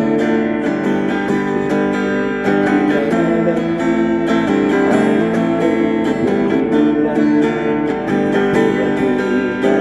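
Acoustic guitar strummed in a steady rhythm, playing a song's chords.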